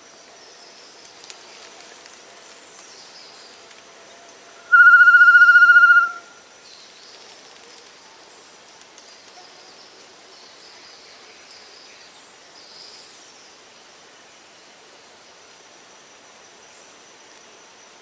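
One loud whistled note, held at a dead steady pitch for about a second and a half with a fast quaver, a little under five seconds in. Under it runs a thin, steady, high insect whine.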